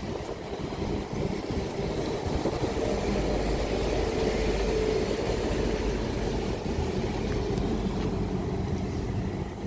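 Transport for Wales diesel multiple unit running through the station, engine hum and wheel rumble steady, growing louder toward the middle and easing slightly after.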